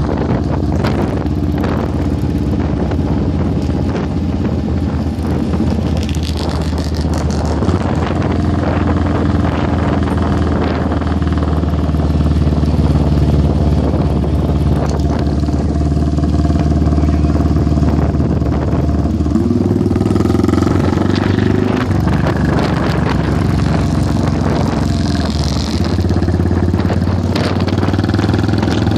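Motorcycle engine running steadily while under way, its note holding an even pitch and then shifting about two-thirds of the way through, as with a throttle or gear change.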